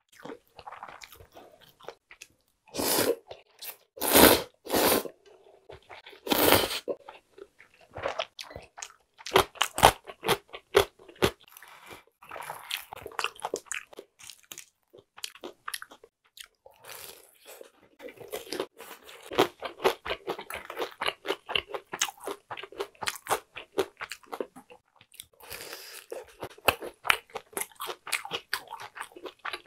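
Close-miked eating sounds: four loud slurps of cold buckwheat soba noodles in the first seven seconds, then crunchy chewing of a deep-fried, battered jumbo shrimp, a dense run of small crisp crackles.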